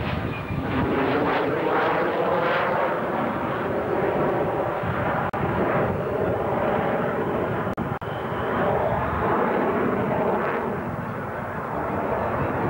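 Jet engines of a twin-engine F/A-18 Hornet fighter flying a display overhead. A loud, steady rushing noise whose tone sweeps up and down as the aircraft moves, easing slightly near the end.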